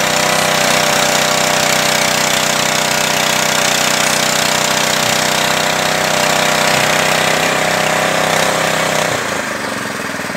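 Small petrol engine running a floating fish-feed pellet extruder under load, a steady loud engine drone mixed with the rattling churn of the extruder as feed mash is pushed through. The sound drops a little and thins out about a second before the end.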